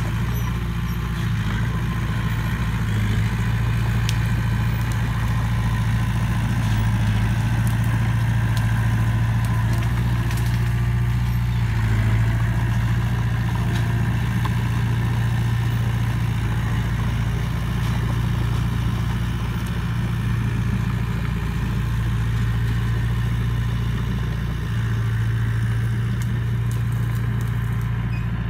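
Diesel engine of a small crawler bulldozer running steadily under load as it pushes through brush, with faint crackling over the engine hum.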